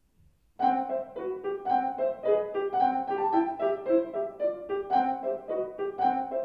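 Steinway & Sons grand piano being played: after a near-silent pause, a piece starts about half a second in with a brisk, even run of single notes in the middle register.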